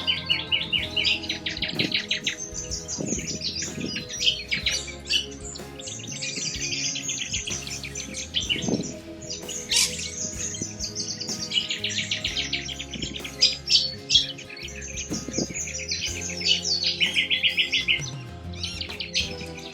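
Birds chirping in rapid, repeated trills, over soft background music with long held notes.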